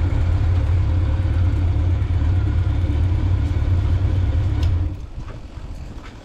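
Honda Nighthawk 750's inline four-cylinder engine running steadily with a low rumble, then shut off about five seconds in.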